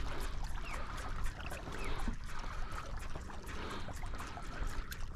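Water splashing and trickling against the hull of a moving kayak, a steady wash scattered with small drip-like clicks, over a low rumble.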